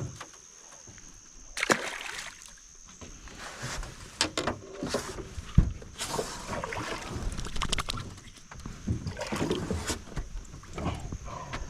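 Irregular knocks, rustles and splashy handling noises in a small fishing boat on the water, over a steady high-pitched insect drone.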